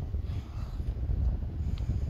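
Wind buffeting the microphone: a steady low rumble, with a faint click near the end.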